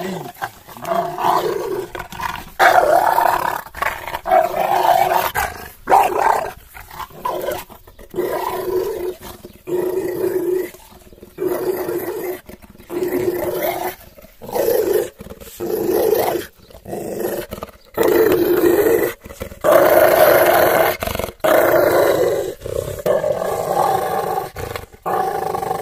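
American bulldog growling in play while gripping and tugging a rubber tyre, in repeated loud bouts of a second or so with short breaks for breath between them.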